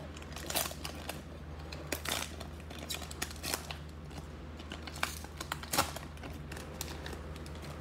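Plastic wrapper of a trading-card value pack crinkling and tearing as it is ripped open by hand: a string of irregular sharp crackles.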